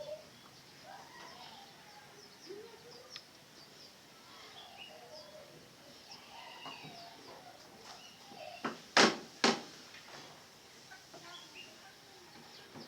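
Birds chirping and calling faintly, with three sharp knocks in quick succession about nine seconds in.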